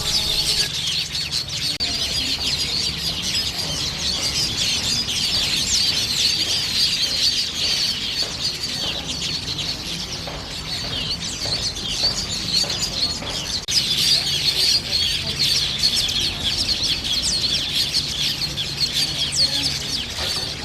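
A colony of village weavers chattering, many birds calling at once in a dense, unbroken stream of short high chirps and buzzy notes: the busy noise of a breeding colony.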